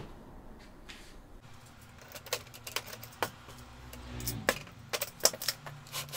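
Plastic wiring duct and DIN-rail panel components (contactors, relays) being lifted and set down on a galvanised steel mounting plate: a string of sharp clicks and knocks, coming thicker in the second half.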